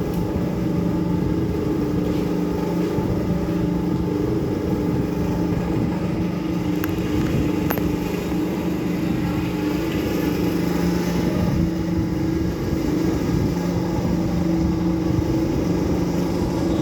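Metal-working lathe running steadily, its motor and drive giving a constant low hum with no cutting going on.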